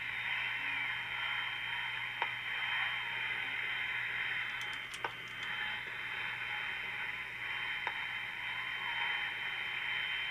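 Transistor AM radio hissing with static as it is tuned between stations. A thin steady high whistle runs over the hiss, with a few short crackles.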